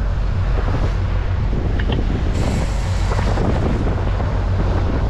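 Fishing boat's engine running steadily underway, a constant low drone, with wind buffeting the microphone and a rushing hiss that grows brighter from about halfway through.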